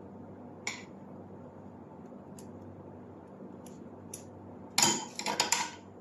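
Metal tools and parts clinking and clattering on a workbench: a few light clicks, then a short burst of clattering about five seconds in, over a steady low hum.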